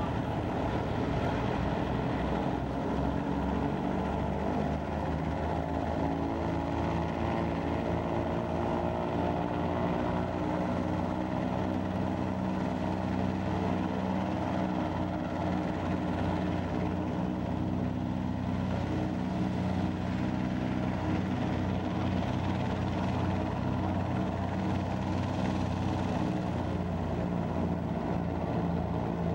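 The twin radial engines of a B-25 Mitchell bomber running at low power as it taxis: a steady, deep propeller drone whose tones drift slightly in pitch.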